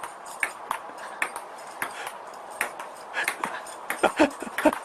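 Scattered light clicks and taps, then near the end a quick run of short, pitched animal calls.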